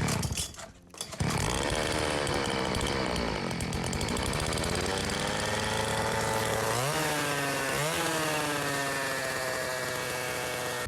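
Motorcycle engine running and being revved: the pitch sinks and climbs slowly, jumps with two quick throttle blips about seven and eight seconds in, then eases back down.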